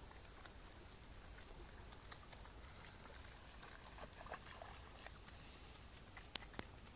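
Faint footsteps and rustling on a muddy, grassy riverbank: a scatter of small soft clicks, with two sharper clicks near the end.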